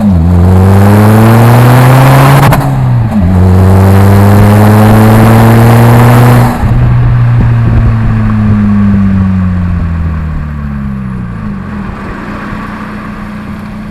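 Seat Leon 1M's 1.9 TDI ARL four-cylinder turbodiesel on a straight-pipe exhaust, accelerating hard through two gears with a shift about three seconds in. It lifts off about halfway through, and the engine note falls and fades as it slows toward idle.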